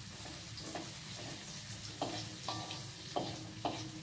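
Shallots and garlic sizzling in oil in a steel wok, while a metal spatula stirs them, scraping and knocking against the wok about five times.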